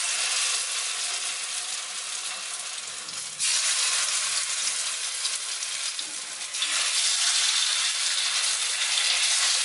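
Masala-coated seer fish (vanjaram) steaks sizzling as they are laid into hot oil in a shallow pan. The sizzle gets louder about three and a half seconds in and again around six and a half seconds in as more slices go in.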